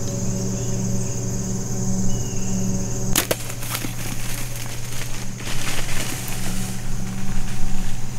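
Mathews compound bow shot about three seconds in: a sharp snap of the string and arrow, followed by a few seconds of rustling and crashing as the hit doe bolts through grass and brush. Insects buzz steadily underneath.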